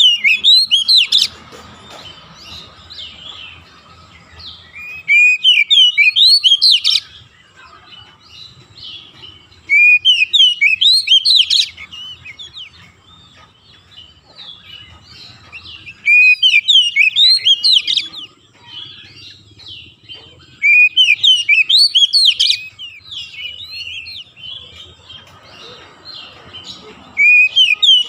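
Oriental magpie-robin singing loud phrases of quick, rising and falling notes, each about two seconds long and repeated about every five seconds, with softer chirping between the phrases.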